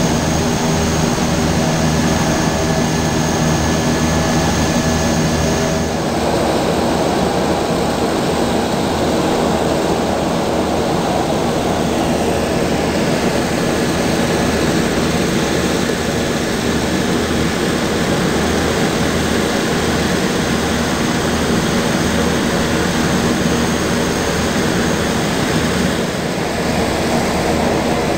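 Nearby aircraft engines running steadily, with a thin high whine that stops about six seconds in.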